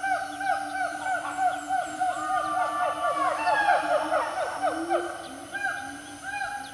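Wild animal calls: a steady, rapid run of short pitched notes, several callers overlapping, with a longer gliding call about two seconds in and scattered higher chirps.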